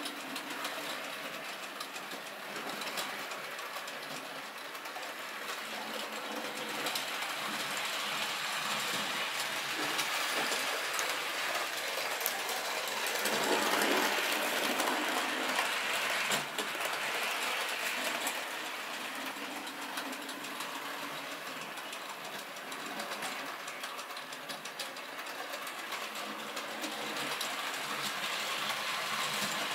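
HO scale saddle tank steam locomotive model running on its layout track, its small electric motor whirring and the train's wheels rolling on the rails. The sound swells as the train passes close by about halfway through, then fades as it moves away.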